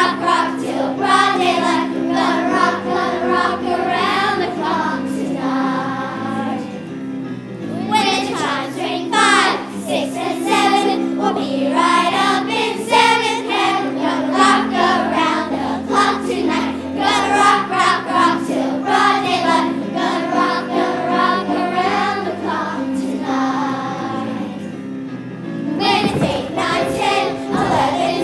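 A children's choir singing a lively song in unison with instrumental accompaniment. The voices drop out twice for a moment between lines while the accompaniment holds its notes.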